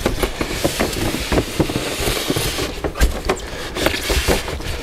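Styrofoam packing and cardboard scraping and rubbing as a packed model bridge is slid out of its box, with many irregular knocks and clicks.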